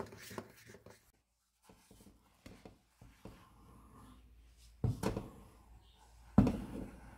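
A wooden spoon stirring and pressing stiff maize-meal sadza in a pot, with soft scraping and rubbing. Two sharp thumps come in the second half, about a second and a half apart, the second the loudest.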